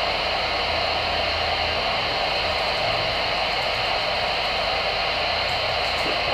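CB radio receiving an idle channel with the squelch open: a steady hiss of static from its speaker, with no one transmitting.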